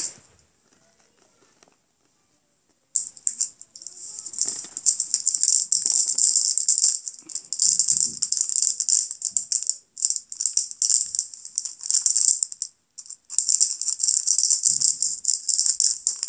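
Clear plastic packaging crinkling and rattling as it is handled. It starts about three seconds in and goes on in bursts, with two short breaks.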